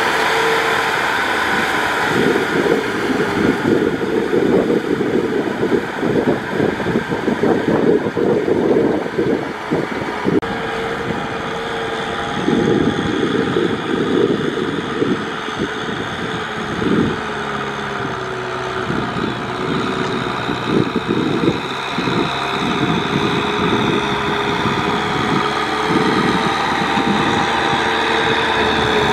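Kubota M6040SU tractor's four-cylinder diesel engine running steadily as it pulls a rotary tiller through wet paddy mud, its pitch wavering slightly. Gusts of wind buffet the microphone.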